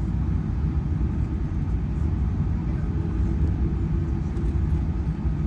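Steady low rumble of an Airbus A380's passenger cabin while the airliner taxis, from the engines at taxi power and the rolling gear.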